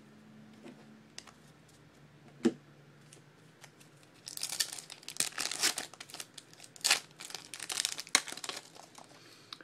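A single sharp click, then a foil trading-card pack wrapper being torn open and crinkled for about five seconds.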